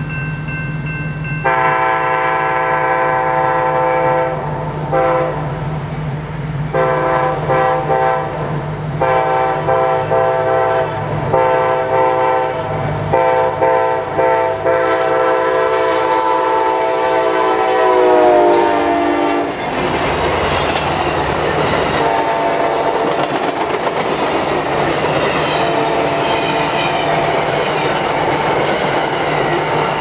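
Amtrak GE P42DC locomotive's K5LA five-chime air horn played as a horn show: a long series of blasts with short breaks, its chord dropping in pitch as the locomotive passes about eighteen seconds in. After that the passenger cars rumble and clatter past over the rail joints, while the horn keeps sounding more faintly.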